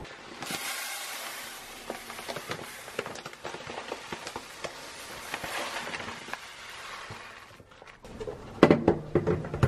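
White rice grains poured from a paper sack into a plastic rice bin: a steady rush of grains with many small patters against the plastic for about seven seconds. Near the end, a few sharp knocks as the bag and bin are handled.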